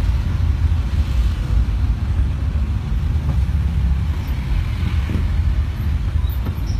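Steady low rumble of a car's engine and road noise, heard from inside the moving car's cabin.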